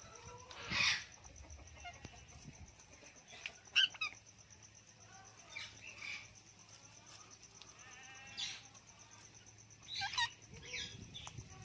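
Ring-necked parakeet giving short, harsh squawks and chirps, a few seconds apart, the loudest about a second in.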